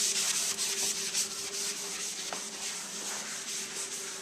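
A cleaning sponge scrubbing scuff marks off a painted surface in rapid back-and-forth strokes, a rubbing hiss that fades toward the end.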